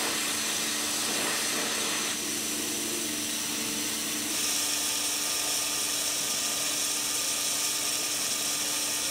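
Industrial waterjet cutter running: its high-pressure water jet cutting through metal plate with a steady hissing noise and a high whine. The high part of the sound grows stronger about four seconds in.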